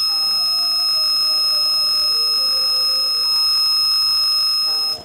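Digital multimeter's continuity buzzer giving one steady, high-pitched beep that holds for about five seconds and then cuts off sharply, as its probes bridge a wire of a USB mouse cable. The unbroken beep means the wire conducts and is not broken.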